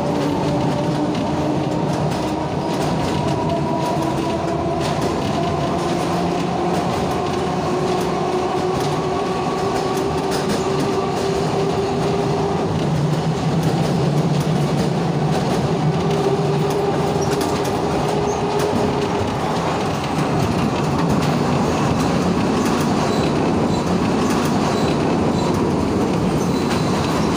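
Alexandria street tram heard from on board while running: a steady rumble of wheels on rail, with a whine of several tones that rises slowly in pitch over the first dozen seconds.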